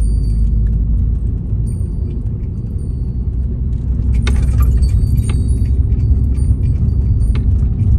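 Inside the cabin of a Ford Transit van driving on a town street: a steady low rumble of road and engine noise that grows louder about four seconds in. Small metal objects jingle and click lightly throughout.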